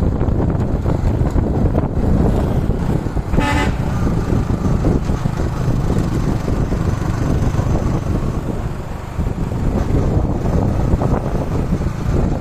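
Steady low rumble of road traffic and wind on the microphone, with one short blast of a tour bus's telolet horn about three and a half seconds in.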